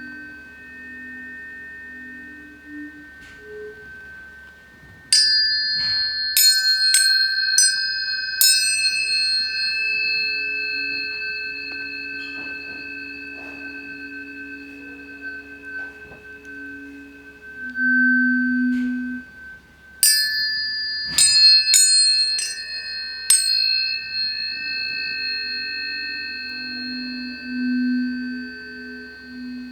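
Several tuning forks ringing in steady, overlapping tones. They are struck again in two quick clusters of about five strikes each, about five and twenty seconds in, and each strike rings out brightly before settling. Low tones swell and fade beneath them.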